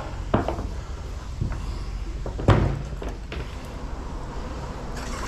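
Hollow knocks and thumps of a plastic kayak hull bumping against shoreline rocks as someone climbs in, a few separate knocks with the loudest about two and a half seconds in.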